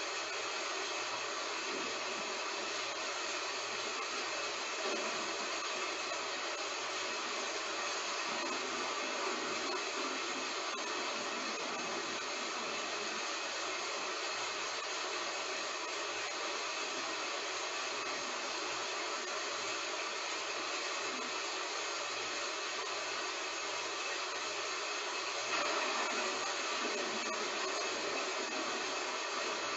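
Heavy rain falling in a steady hiss, swelling briefly a few seconds before the end.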